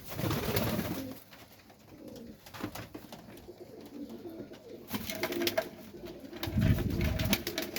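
Young Serbian highflyer pigeons cooing in a small loft, with scattered clicks and rustling in the last few seconds.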